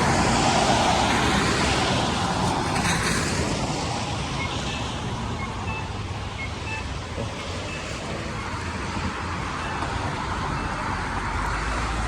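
Street traffic at a busy intersection: a vehicle passing loudly in the first few seconds, then a steadier, quieter wash of road noise.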